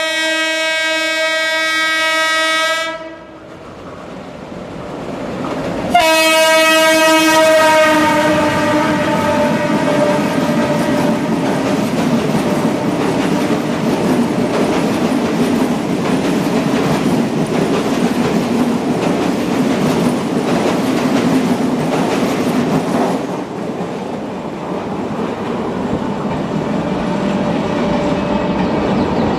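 WAP7 electric locomotive's horn sounding twice, the second blast dropping slightly in pitch as it passes. It is followed by a long steady rumble of the express train rushing through the station, wheels clattering over the rail joints, easing off near the end.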